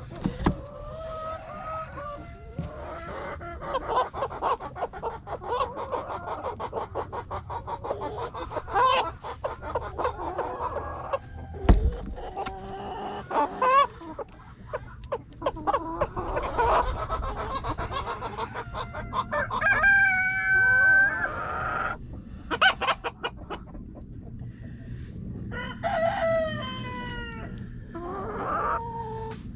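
Domestic hens clucking and cackling steadily, with a few louder drawn-out calls standing out about two-thirds of the way in and again near the end. A single thump sounds a little before the midpoint.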